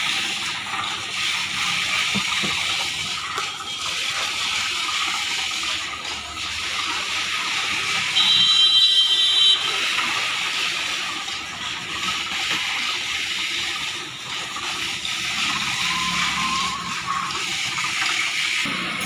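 Sugarcane juice pouring in a steady stream from a metal channel and splashing into a collecting tank. A brief high whine sounds about eight seconds in.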